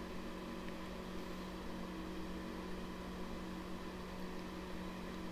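Steady background hum with an even hiss: room tone with no distinct sound events.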